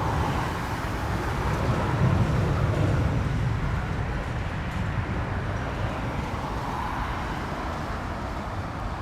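Jet airliner engines rumbling, swelling about two seconds in and then slowly easing off.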